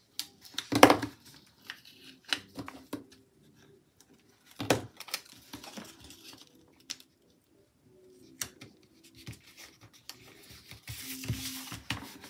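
Paper craft handling: a sharp scissor snip through sticker paper about a second in, then sticker paper crinkling and peeling and scattered taps, and paper pages rubbing and sliding across a table near the end. Faint background music underneath.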